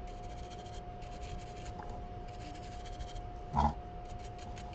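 Logic board being slid and shifted by hand on the bench under the microscope: short bursts of rapid, fine scratchy ticking, with one brief dull knock about three and a half seconds in. A thin steady tone hums underneath throughout.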